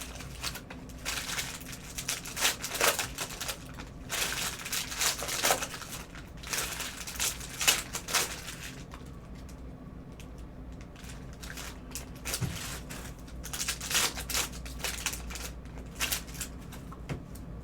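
Cellophane-wrapped trading-card packs crinkling and rustling as they are handled, in irregular bursts, with a quieter spell in the middle.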